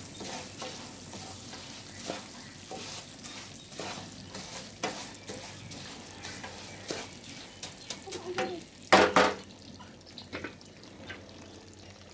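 A spatula stirring fried rice through hot sugar syrup in a pan for burfi: a run of short scrapes and clatters against the pan, with one louder scrape about nine seconds in.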